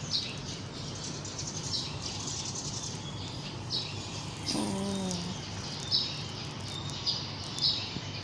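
Small birds chirping outdoors, short high chirps repeated every second or so. A brief low voiced sound comes about halfway through.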